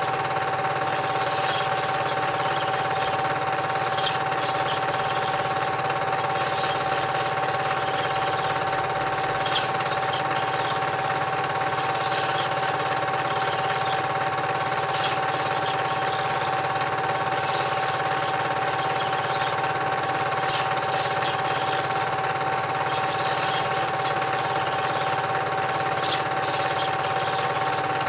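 Cine film projector running: a steady, fast mechanical clatter with a constant whirring hum. A light click comes about every five to six seconds.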